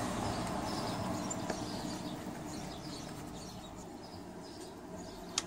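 Faint birds chirping over a steady outdoor background hum, with one sharp click near the end.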